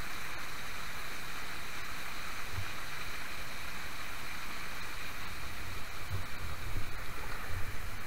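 River water rushing steadily over rapids, a constant hiss. From about six seconds in, irregular low bumps on the microphone sound under it.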